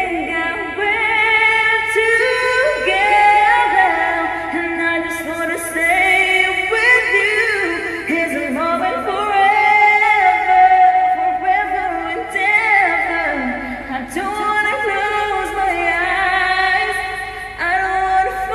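A woman singing a slow ballad, holding long notes and sliding up and down through vocal runs.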